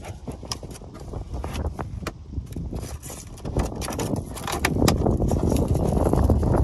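Wind buffeting the microphone, growing stronger about halfway through, over small clicks and knocks of hands handling the wiring and battery inside a plastic RC boat hull.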